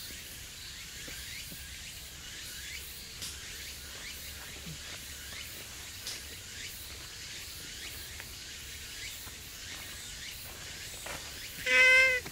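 Steady outdoor background of insects with faint short chirps, then near the end a domestic cat gives one loud, short meow close by.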